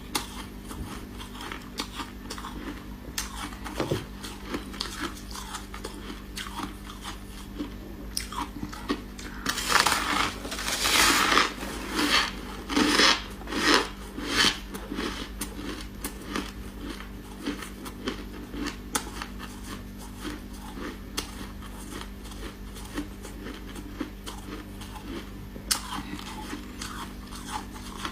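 Chunks of freezer frost being bitten and chewed close to the microphone: a steady run of small crackling crunches, with a burst of loud crunching bites about a third of the way in.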